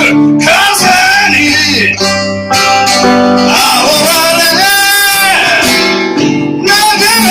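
Live band music: strummed acoustic guitar with a voice singing, one long note held with vibrato about five seconds in.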